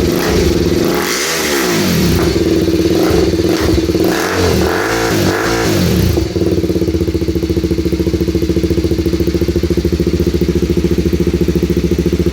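BMW G310 RR's single-cylinder engine through an aftermarket performance exhaust, revved in quick throttle blips, one about a second in and several more between about 4 and 6 seconds. It then settles into a steady idle with an even pulsing beat.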